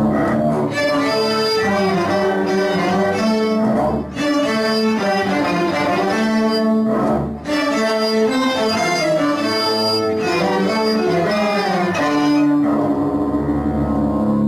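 A student string ensemble of violins and cellos playing a tune together, a moving bowed melody over lower cello notes. Near the end it settles onto one long held final chord.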